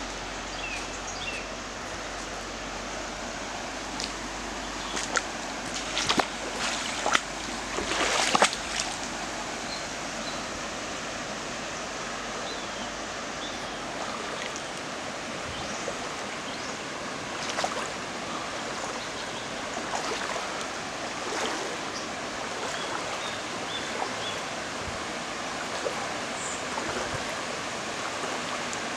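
Shallow river water rushing steadily over stones in a small riffle. A cluster of short knocks and rustles comes about six to nine seconds in, the loudest moments.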